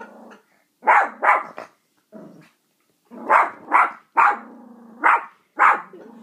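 Six-month-old Yorkshire terrier puppy barking repeatedly, about ten short barks in runs of two or three, with a low growl held between the barks in the second half.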